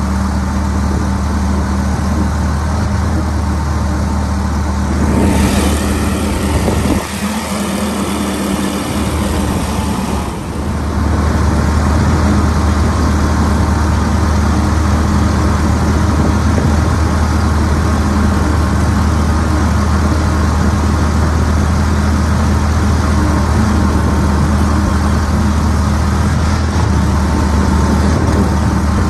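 A 40 hp EFI Pro-Drive mud motor runs hard under load as the boat pushes through thick water hyacinths. The engine note sags briefly about seven seconds in, then returns to full, steady running about three seconds later.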